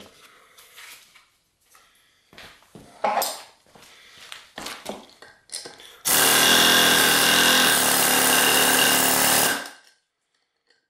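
Central Pneumatic medium barrel air hammer driving a chisel into a concrete block, chipping it: a loud, steady hammering that starts about six seconds in and lasts about three and a half seconds before cutting off. Before it, light knocks and rustles as the tool is handled and set against the block.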